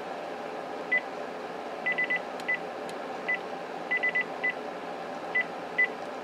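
Panasonic 5.8 GHz cordless phone handset giving short, high key-press beeps as its buttons are pressed one after another while they are tested: about a dozen beeps at irregular intervals, some single and some in quick runs of three.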